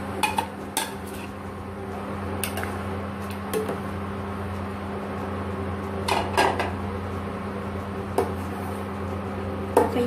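Dishes and utensils clinking and knocking against a stainless steel pot as cooked rice is scraped off a plate into the soup and a ladle goes in to break it up: a handful of separate sharp clinks, a pair close together about six seconds in, over a steady low hum.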